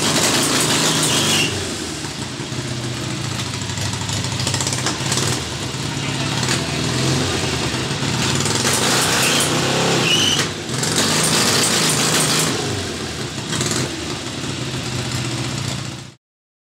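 Harley-Davidson XLCH Sportster's air-cooled V-twin running, swelling louder in several stretches as the throttle is opened, then cutting off abruptly near the end.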